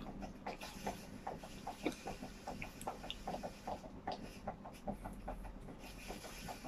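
Wet chewing and lip-smacking of a person eating a ripe mango, biting and sucking the flesh off the peel: a quick, irregular run of small smacks and clicks.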